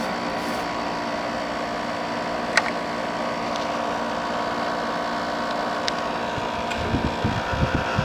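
General Electric ADEL50LRL2 dehumidifier running: a steady hum of its compressor and fan, with one sharp click about two and a half seconds in and some low irregular thumps near the end.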